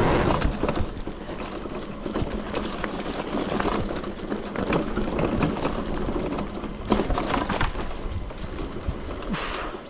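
Mountain bike rolling down a rough dirt and grass trail: a steady rush of tyre noise with many small clicks and rattles from the bike over the bumps.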